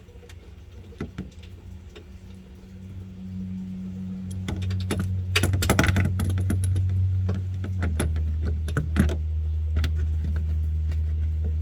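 Small clicks and taps of hand tools working the plastic clips and bolts of a car's underbody shield, with a short clatter a little past halfway. Under them a steady low hum comes in a few seconds in and grows louder.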